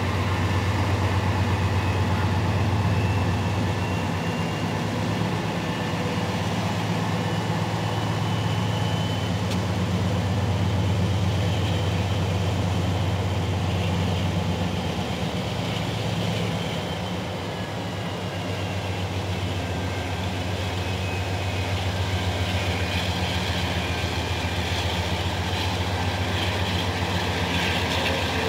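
Freight train tank cars rolling past: a steady, loud low rumble of steel wheels on the rails, with a faint high squeal drifting slowly in pitch.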